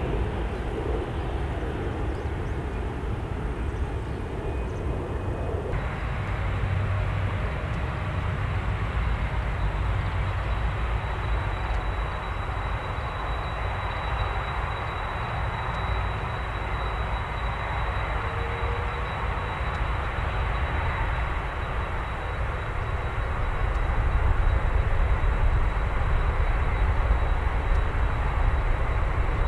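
Airbus A380-841's four Rolls-Royce Trent 970 turbofans running on the ground: a steady deep rumble with a thin high whine, growing louder about 24 seconds in.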